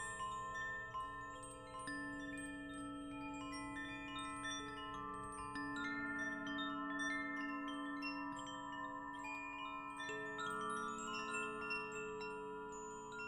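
Wind chimes ringing continuously: tones struck at random moments overlap, each ringing on for a few seconds.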